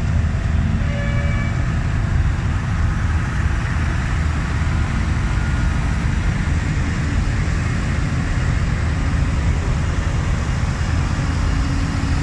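A line of large diesel farm tractors driving slowly past, their engines making a steady, loud low rumble. Near the end, one engine's note stands out more clearly as a tractor passes close.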